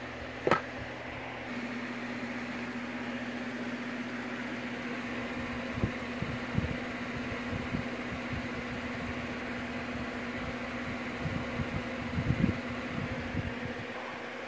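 Handling noise from a small figurine and its packaging being held and moved: one sharp click about half a second in, then scattered soft bumps and knocks from about six to thirteen seconds in, over a steady electrical hum.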